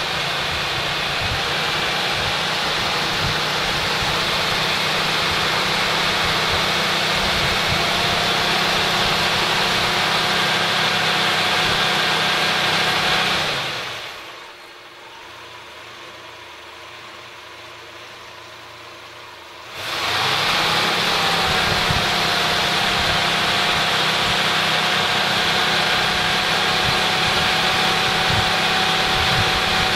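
Six-cylinder four-stroke car engine held at a fast idle of about 2,000 rpm for setting the ignition timing, running steadily with a thin steady whine over it. The sound drops away sharply for about six seconds near the middle, then comes back.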